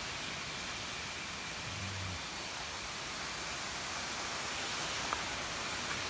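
Steady outdoor ambience: an even hiss with a constant high-pitched insect drone over it, and a brief faint voice about two seconds in.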